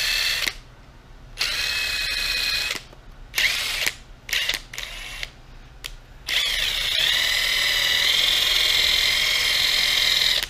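Small handheld power buffing tool whining at high speed as it polishes a clear plastic gauge-cluster lens. It starts and stops in short bursts, then runs steadily for the last few seconds, its pitch dipping briefly along the way.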